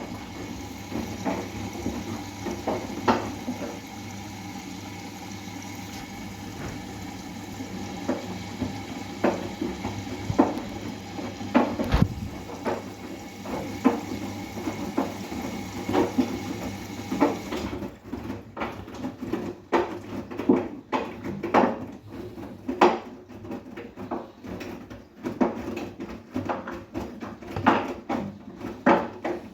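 Bosch WGA252Z0TR front-loading washing machine mid-wash: a steady motor hum as the drum turns, with irregular knocks and clicks of the wet laundry and water tumbling inside, coming more often in the second half.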